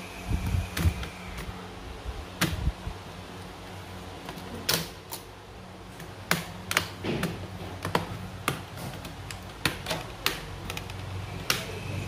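Keys on an Asus X502CA laptop keyboard pressed one at a time: separate clicks at uneven intervals, roughly one every half second to a second. A few duller knocks come in the first second or so.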